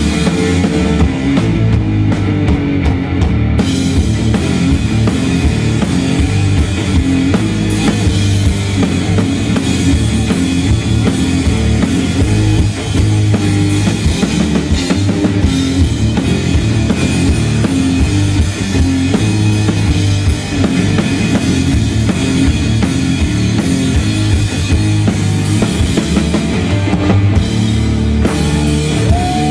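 Live rock music played loud on a drum kit, with heavy bass drum and crashing cymbals, under electric guitar.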